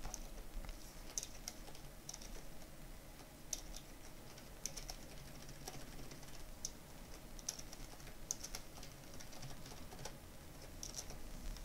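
Faint, irregular keystrokes on a computer keyboard: scattered single key taps with short pauses between them, as code is edited by hand.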